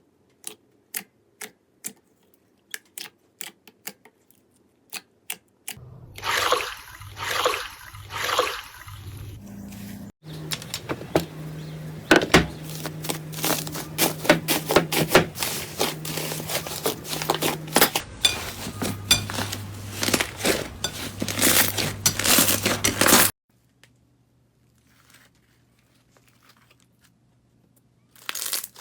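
Slime being handled for ASMR: a run of sharp clicks, then several wet squishes, then a long stretch of dense crackling and popping. It falls almost silent near the end.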